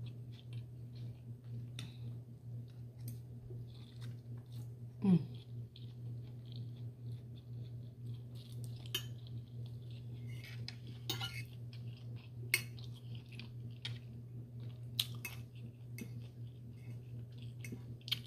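Eating sounds: scattered light clicks and scrapes of cutlery against a plate, with some chewing, over a steady low hum. About five seconds in, a short falling vocal sound.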